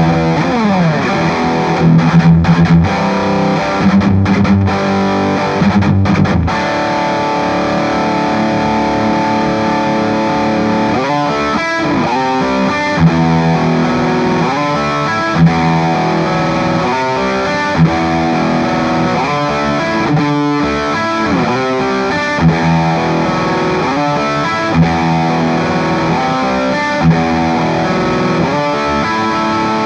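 Gibson Les Paul Special Double Cut electric guitar with P-90 pickups, played with high-gain distortion through a Soldano Astro 20 amp. It opens with a falling slide and heavy chugging riffs, then moves into fast legato runs and held notes with sharp accents every couple of seconds.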